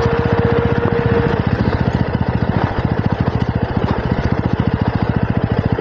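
Jawa 42 2.1 motorcycle's single-cylinder engine running at low, steady revs, an even rapid beat of firing pulses with no revving. A thin steady whine sounds over it and stops about a second and a half in.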